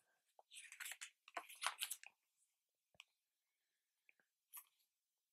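Faint rustling of a book's pages being turned by hand in the first two seconds, then a single light click about three seconds in; otherwise near silence.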